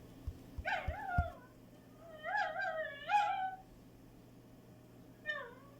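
A pet animal whining in high, wavering calls, four in all, the second and third close together, with a few soft thumps in the first second.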